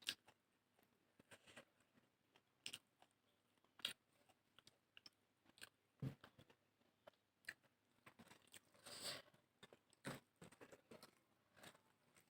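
Close-up eating sounds: chewing and crunching of a rice-and-curry meal, with irregular sharp mouth clicks and smacks and a longer noisy stretch about nine seconds in.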